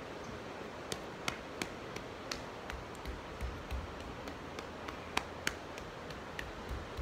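Irregular sharp taps and clicks, about a dozen over several seconds, with a few dull low thumps, from a person moving through a yoga flow on a wooden floor, over a steady background hiss.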